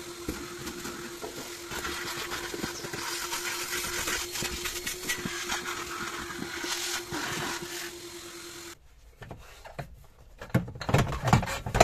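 Vacuum cleaner running with a steady hum and hiss as its hose nozzle sucks up debris from car floor carpet, with scattered clicks. It cuts off suddenly about nine seconds in, followed by irregular knocks and rubbing as gloved hands handle a hard plastic seat-base tray.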